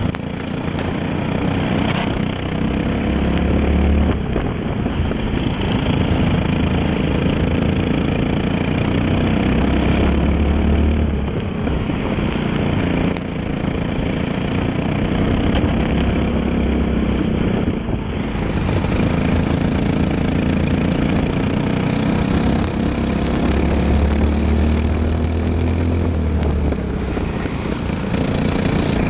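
Single-cylinder Briggs & Stratton LO206 four-stroke kart engine under racing throttle, its pitch climbing and dropping several times as it accelerates and slows through corners, with a steady hiss over it.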